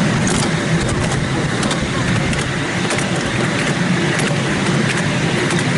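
Steady running noise of a ride-on miniature steam railway train heard from aboard: a continuous rumble with irregular sharp clicks.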